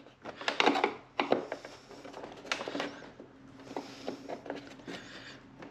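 Scattered plastic clicks and knocks as the grille's retaining clips are pushed and pulled free from a 2020 Mustang GT's plastic front bumper cover.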